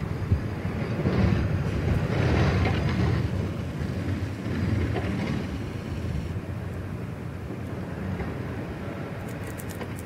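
Blizzard wind gusting against the microphone, a low, noisy rush that swells over the first few seconds and eases after about six.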